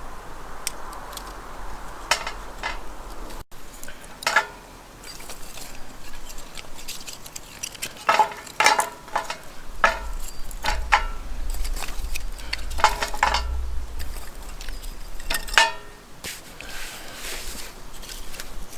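Metal cookware and utensils clinking: a dozen or so irregular sharp knocks of metal on metal, several leaving a brief ringing tone, as when a pot, lid or spoon is handled.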